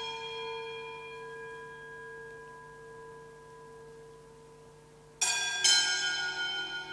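Altar bell rung at the elevation of the chalice during the consecration at Mass. The ring of a stroke just before dies away slowly, and about five seconds in it is struck again, twice in quick succession, ringing on.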